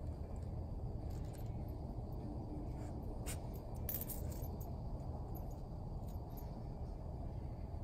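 Dog collar tags jingling briefly twice around the middle as the dog lies down, over a steady low outdoor rumble.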